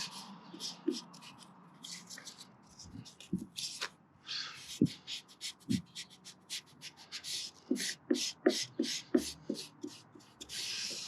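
Squeegee rubbing a vinyl decal and its paper backing down onto a Jeep hood: an irregular run of short scraping strokes with a few light taps.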